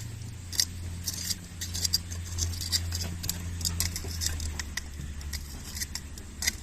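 Irregular light clicks and taps of small hard parts being handled, several a second, over a low steady hum that swells slightly in the middle.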